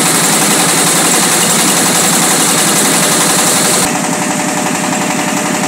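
Engine-driven mobile rice mill running, a steady loud mechanical clatter from the engine and huller/polisher while milled rice pours out. Nearly four seconds in the sound drops slightly and loses much of its high hiss.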